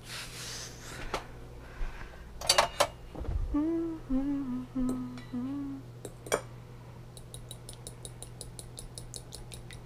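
A fork beating raw eggs in a glass bowl: rapid, even light clinks, about eight a second, through the last few seconds. Before that a woman hums a short tune of a few notes, and there are a few scattered clinks.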